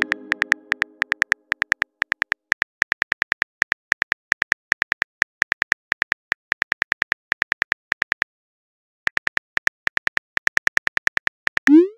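Rapid taps of a phone's on-screen keyboard as a text message is typed, a chime fading out at the start, a short pause about eight seconds in, then a short rising swoosh near the end as the message is sent.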